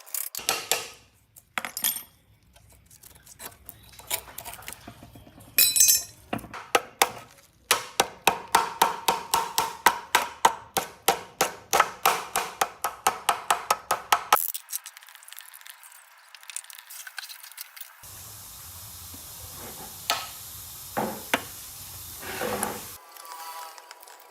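Metal being struck: a few sharp clinks, then a rapid, even run of ringing metallic strikes, about four a second, lasting around six seconds. Later comes a steady noise with a few more clinks.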